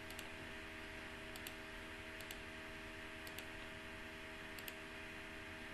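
Faint computer mouse clicks, each a quick press-and-release pair, about five times over a few seconds. They sit over a steady low electrical hum.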